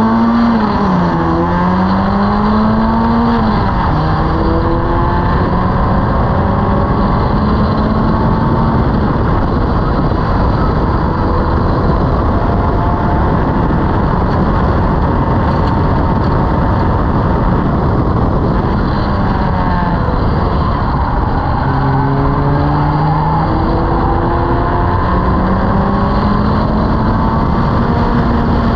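Locost club racing car's engine at racing speed, heard from the open cockpit with steady wind and road rush. The revs climb through the gears with brief drops at upshifts early on, fall with short blips around two-thirds through as it brakes and changes down for a corner, then climb again near the end.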